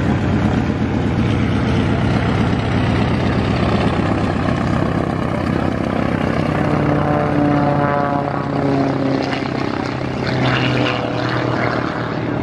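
Single-engine propeller aerobatic plane running at high power on a low, fast pass, its engine and propeller note dropping in pitch as it goes by about seven to nine seconds in.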